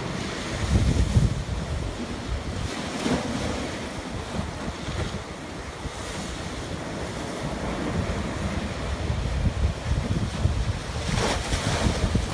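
Rough sea waves breaking against a stone harbour slipway wall and sluicing up the slipway, with heavy wind buffeting the microphone. The surf swells in hissing rushes a few times, one strong rush near the end.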